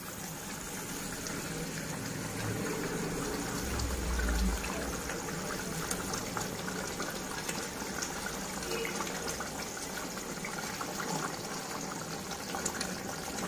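Curry gravy boiling in a kadai, a steady bubbling with fine crackle, as fried rohu fish pieces are slipped into it one by one. A low thump about four seconds in.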